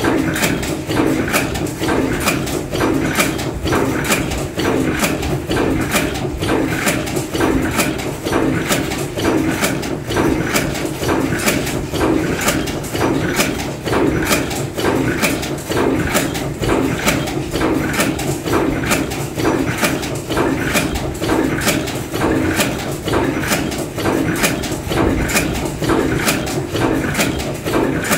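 Bolt former cold forging machine running: a rapid, even knocking of its strokes over a steady mechanical hum.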